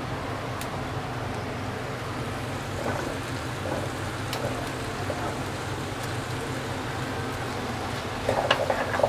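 Mixed vegetables and peas sizzling steadily in a pot over raised heat, with a wooden spatula stirring and scraping through them. A few faint clicks come in the middle, and there is a brief louder burst near the end.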